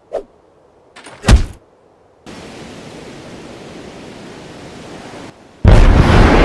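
Added animation sound effects: a short thud about a second in, then a steady rushing noise for about three seconds. It breaks off, and a sudden, much louder crash of noise starts near the end.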